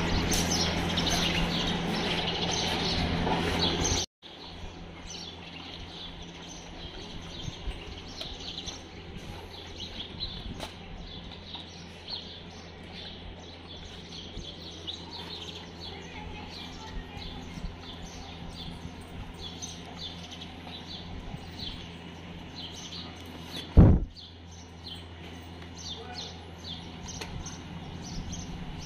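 Small birds chirping again and again. A steady low hum heard over the first few seconds cuts off abruptly, and a single loud knock comes about four-fifths of the way through.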